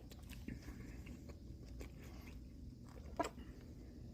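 A person chewing and biting food, with soft mouth clicks over a low background hum, and one sharper, louder click about three seconds in.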